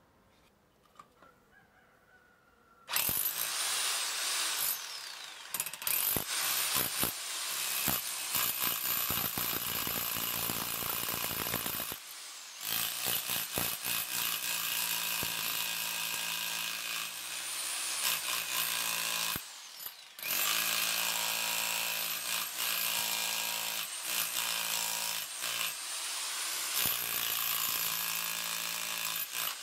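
TOTAL TH115326 1500 W SDS-plus rotary hammer chiselling into a masonry block, its hammer action starting about three seconds in and stopping briefly twice.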